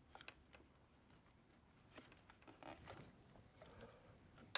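Near silence, with a few faint clicks and soft scuffs of small plastic parts being handled: the feed tubes being fitted to the AMS Lite and printer.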